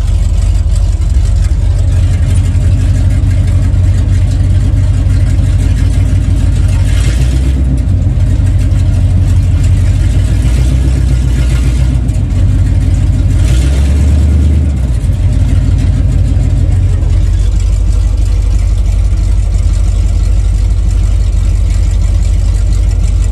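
Freshly rebuilt Chevrolet 454 big-block V8 running loudly with no air cleaner fitted. It runs steadily, and its pitch shifts a few times near the middle.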